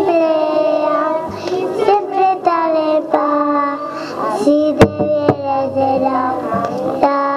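Children singing a song together in one melody line, holding long notes, with a single sharp knock about five seconds in.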